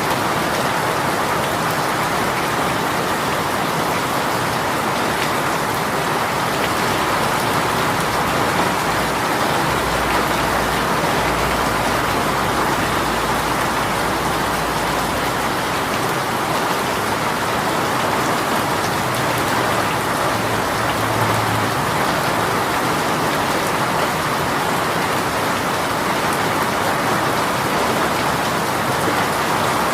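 Heavy rain shower falling steadily on surfaces, a continuous even rush of rain.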